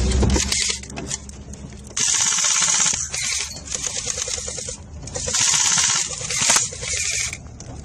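JG Golden Eagle M4 electric airsoft rifle firing on full auto: two rapid bursts of rattling shots, each about a second long, about two seconds in and again about five seconds in.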